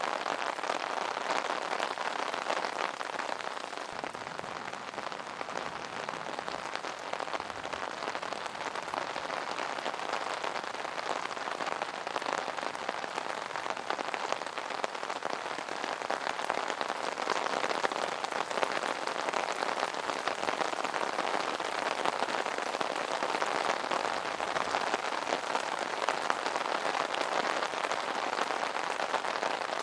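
Rain falling on an umbrella: a steady, dense patter of drops on the fabric canopy.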